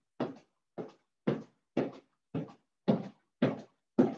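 Tuck-jump landings: feet thudding on the floor about twice a second, eight in a row, each thud clipped short with dead silence between them, as over a video call.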